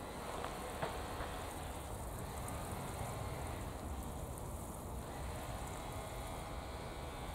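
Water sprinkling steadily from the rose of a plastic watering can onto seedlings and bare soil, making a rain-like shower sound.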